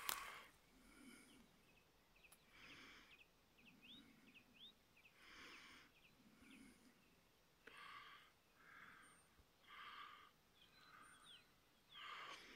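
Faint breathing close to the microphone, a soft breath every one to two seconds, with a few short, high chirps from small birds in between.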